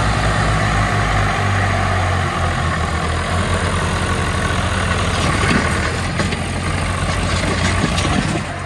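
Swaraj 735 tractor diesel engine running steadily, with a low, even engine beat.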